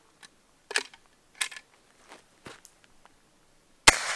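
A few light clicks, then a single sharp shot from a Cooey 39 single-shot .22 rifle near the end, fading away quickly.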